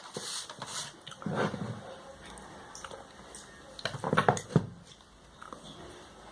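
Hands handling a phone's packaging: scattered clicks and short rustles, with two louder bursts of handling about a second and a half in and around four seconds in.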